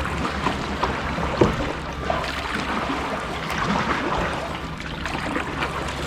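Carbon kayak paddle dipping into calm sea, with water splashing and dripping off the blades in an uneven series. The sharpest splash comes about one and a half seconds in.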